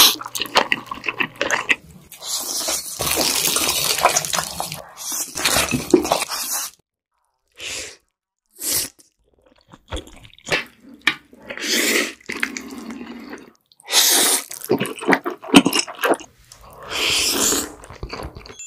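People slurping and chewing jajangmyeon (black bean noodles): a few long wet slurps of noodles, then shorter slurps and chewing clicks with brief pauses between.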